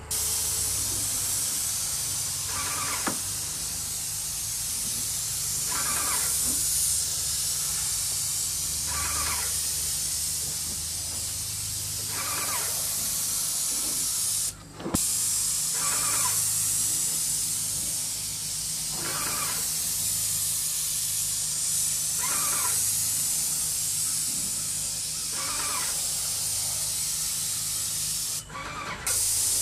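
Airless sprayer hissing steadily as it sprays wood stain, with a low steady hum underneath. The spray cuts off briefly about halfway and again near the end, and a short higher sound recurs about every three seconds.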